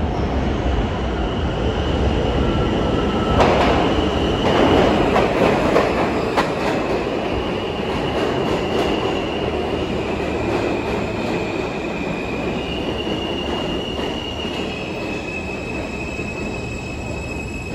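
New York City subway train running through a station: a steady rumble of wheels on track, loudest about four seconds in, with high wheel squeal that comes and goes.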